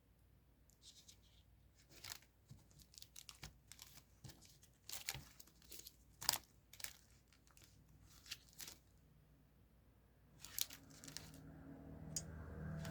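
Stickers and tape being peeled and torn, with paper crinkling, in a series of short, quiet strokes during journal decorating. A low hum rises near the end.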